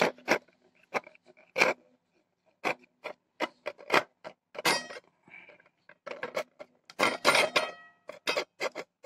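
Fingers working a soft paste in a stainless steel bowl: irregular squishy clicks and ticks as the fingertips slap and scrape against the metal. They come thicker about seven seconds in, with a brief metallic ring from the bowl.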